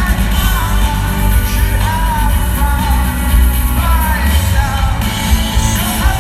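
Live rock band playing with a lead vocalist singing a melodic line over heavy bass and drums.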